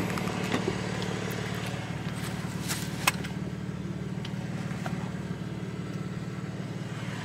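A car engine idling steadily, with a few light clicks and knocks from handling the car.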